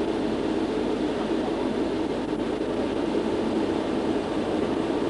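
Concorde's Olympus 593 turbojets at takeoff power during the takeoff roll, heard inside the flight deck as a steady, even rushing rumble with no breaks.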